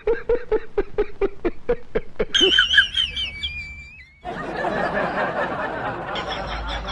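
A quick run of snickering laughter in rapid pulses, followed by high gliding squeaky tones and then a long rushing noise.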